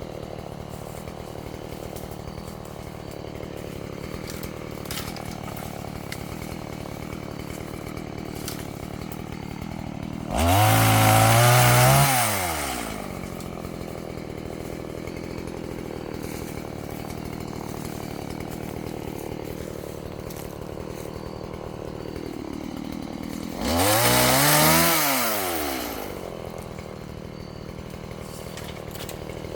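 Chainsaw idling, revved up hard twice, about ten seconds in and again later, each rev rising in pitch for two or three seconds before falling back to idle.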